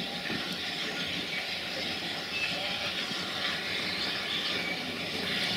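Steam locomotive blowing off steam: a steady hiss that runs on without a break.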